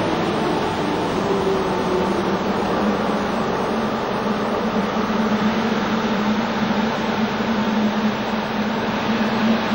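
NS class 1700 electric locomotive with its double-deck push-pull train, a steady hum over an even rumbling noise that holds without change.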